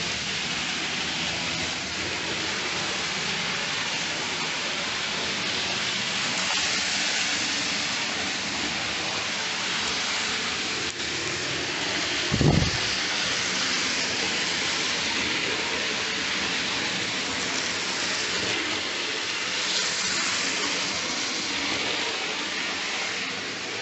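Hornby OO gauge model trains running round the layout track, a steady running noise of wheels on rails and small motors, with one short low thump about halfway through.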